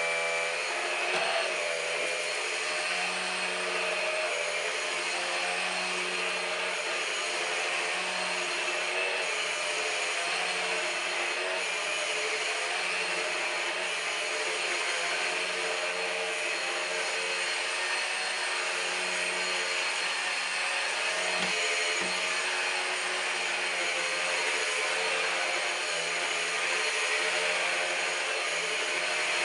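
Numatic Henry Quick cordless stick vacuum running steadily: a constant motor whine over rushing air, with small changes in the low end as it works across the floor.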